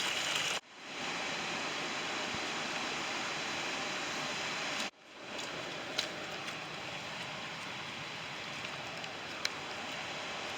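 Steady rushing of running water, broken twice by sudden drop-outs that fade back in, with a couple of faint ticks.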